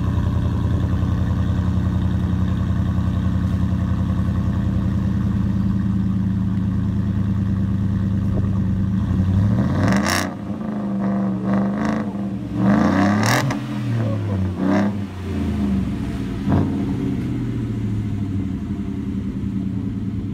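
Roush F-150's V8 idling through its Roush cat-back stainless-steel exhaust with dual tips, then revved in a series of quick blips about halfway through, the pitch rising and falling with each, before settling back to a steady idle.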